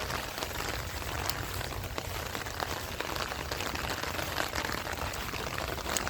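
Rainwater running and dripping: a steady wash of water with scattered small drips and taps.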